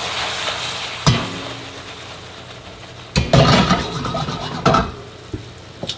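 Red wine sizzling in a hot stainless skillet of mushrooms, the hiss fading over the first couple of seconds as the pan is swirled. The skillet knocks on the gas stove's grate about a second in, then clatters and scrapes on it from about three seconds in.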